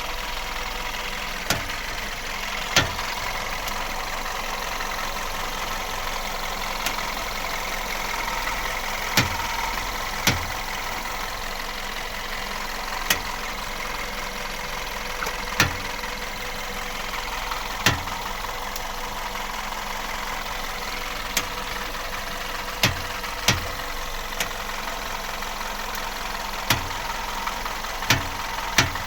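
VW Golf Plus idling while its steering wheel is turned at standstill, with sharp single knocks from the front end every one to four seconds, about a dozen in all. The knock comes with turning the wheel in place.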